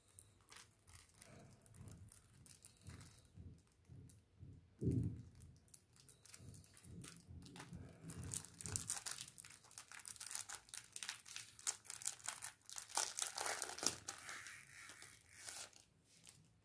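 Cellophane shrink wrap being torn and peeled off a plastic CD jewel case, crackling and crinkling. There is a dull bump about five seconds in, and the crinkling grows busiest in the second half before stopping just before the end.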